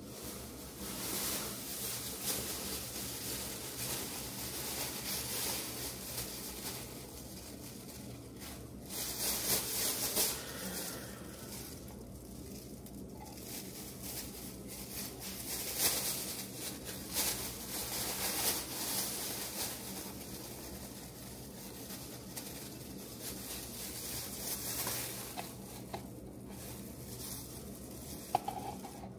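Food sizzling as it fries in a pan, with now and then a light scrape or clink of a utensil.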